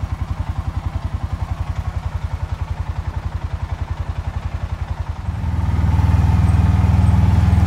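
Vehicle engine idling with an even, rapid low pulse, then picking up to a louder, steadier run about five seconds in.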